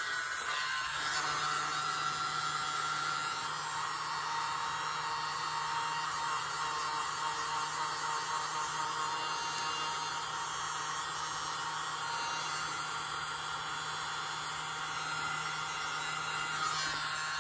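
Small hair dryer running on a steady setting, its air rushing with a low motor hum, held close to the canvas to blow wet acrylic paint outward into a bloom.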